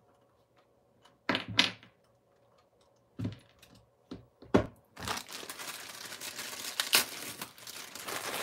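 A few sharp clicks and knocks as a small plastic RC car wheel is worked off its axle and set down on a wooden bench. From about five seconds in, a clear plastic parts bag crinkles steadily as it is handled.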